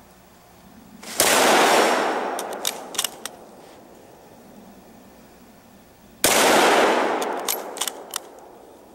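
Two shots from a Mauser K98k bolt-action rifle in 8mm Mauser, about five seconds apart, each with a long echo dying away over a couple of seconds. A few sharp metallic clicks follow each shot as the bolt is worked to chamber the next round.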